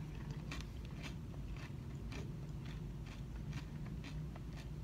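Close mouth sounds of chewing a spoonful of acai bowl: small, irregular wet clicks and crunches several times a second.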